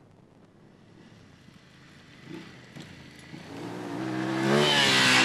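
BMW F850GS parallel-twin engine coming closer and getting louder as it climbs a loose gravel track, revving up in pitch as it passes close. Near the end a hiss of gravel and dirt is sprayed by the spinning rear tyre.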